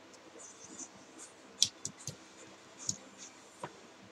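A few light, irregular clicks and scratches of wires and small parts being handled inside an opened plastic power strip, the sharpest about a second and a half in.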